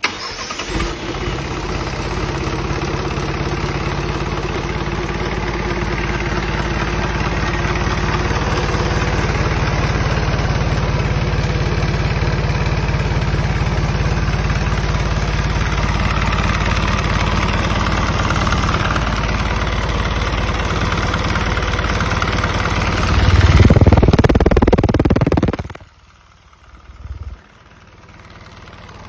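Isuzu 4HF1 4.3-litre four-cylinder diesel truck engine, out of the truck with its 5-speed gearbox attached, starting at once and running steadily. About 23 seconds in it runs louder for a couple of seconds, then shuts off abruptly.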